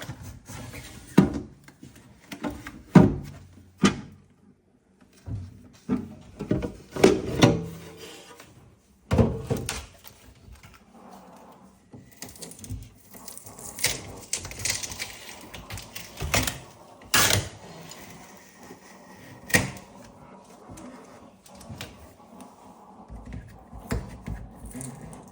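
Irregular knocks and thuds with crackling rustle, from packaging and the fridge's parts being handled as a new fridge is unpacked.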